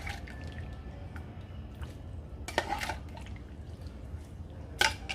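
Boiled peas and diced carrots being tipped into mashed potatoes: soft wet dripping and squishing sounds, with a few sharp utensil clicks against the bowl around the middle and near the end.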